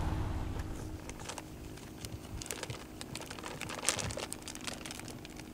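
Scattered small clicks and crinkling from a cat-food packet being handled, with one sharper click about four seconds in, over a low steady background hum.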